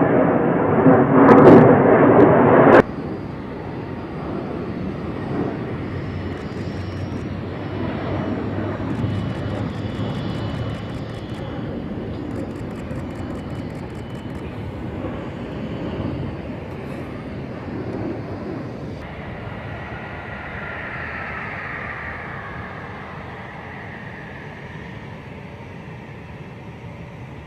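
Jet aircraft engine noise. A very loud stretch cuts off abruptly about three seconds in and gives way to a steadier, quieter jet noise that slowly fades. A falling whine comes in near the end.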